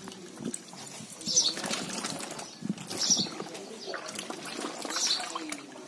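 Dye liquor splashing and sloshing in an indigo vat as a wet cloth is plunged and worked by gloved hands, with a splash every couple of seconds.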